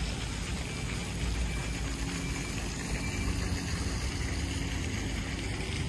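Steady low rumble of a vehicle engine in street traffic.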